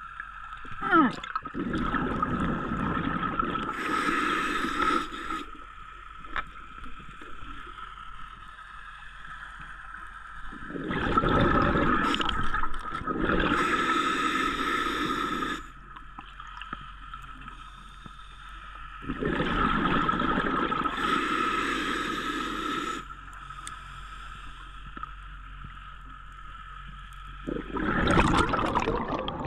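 A scuba diver breathing through a regulator underwater: four slow breaths, each a short hissing inhale followed by a longer bubbling exhale, about every eight to nine seconds.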